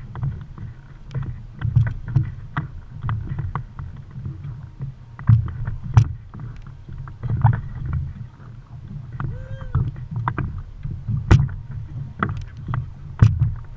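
Water slapping against the hull of a small fishing boat as it rocks, an uneven low rumble broken by frequent sharp knocks from the boat.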